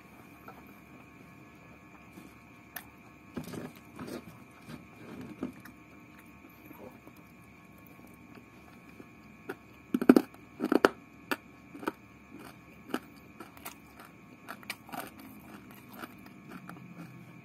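Close-up eating sounds of someone chewing a mouthful of rice with his hands: scattered wet clicks and smacks, with the loudest cluster about ten seconds in. A faint steady high hum runs underneath.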